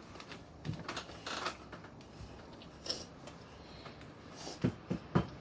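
A child eating: chewing and small mouth clicks with scattered light rustles, and a few soft thumps a little before the end.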